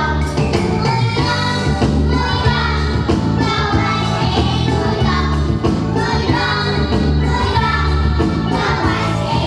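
Music with a steady beat and a group of young children singing along.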